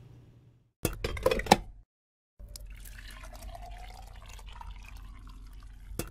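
Coffee poured from a glass carafe into a mug: a steady pour whose pitch rises a little as the cup fills. Brief clinks and knocks come about a second in and again near the end.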